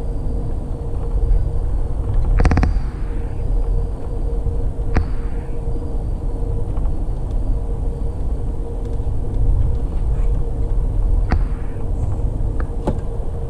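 Amtrak passenger train running along the track, heard from inside the car: a steady low rumble with a faint constant hum, broken by a few sharp knocks, the loudest about two and a half seconds in.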